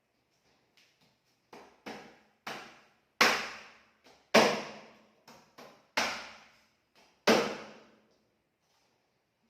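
Chicken carcass being chopped up with a cleaver: about a dozen sharp, uneven blows. The heaviest four come in the second half, about a second and a quarter apart, with lighter ones in between, and each blow dies away over about half a second.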